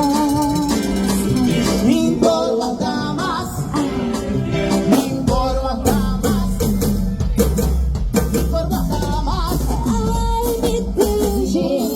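Latin-style band music: a voice singing a melody over bass and busy percussion.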